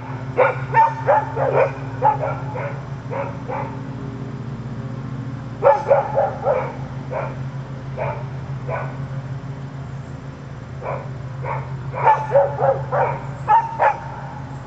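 A dog barking in quick runs of short barks, three bouts with short pauses between, over a steady low hum.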